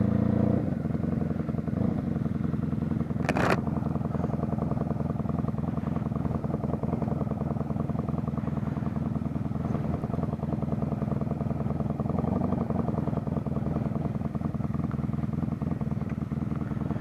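1997 Honda Magna 750's V4 engine running at low revs, settling to a steady, evenly pulsing idle about half a second in as the bike rolls slowly and stops. A short burst of noise comes about three seconds in.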